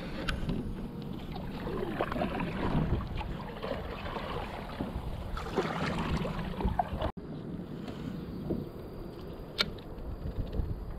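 Kayak paddle strokes through the water, with splashing and dripping as the blades dip and lift, and a single sharp tap near the end.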